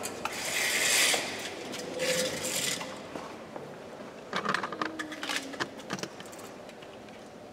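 Holy water sprinkled from an aspergillum in two short hissing splashes, then light metallic clinks and scrapes of the silver holy-water vessels being handled.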